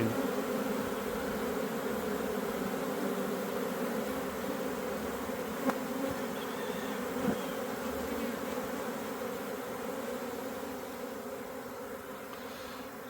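Honeybee swarm buzzing steadily as the bees fan their wings and move into a new hive box. The fanning spreads the scent that tells the swarm the queen is inside. The hum slowly fades, with two brief ticks in the middle.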